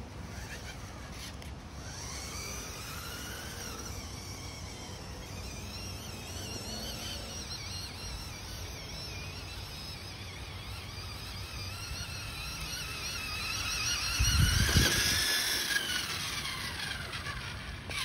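Maisto Ford Bronco Sasquatch RC truck's electric drive motors whining as it drives, the pitch rising and falling again and again. It is loudest about fourteen to sixteen seconds in, with a low rumble underneath.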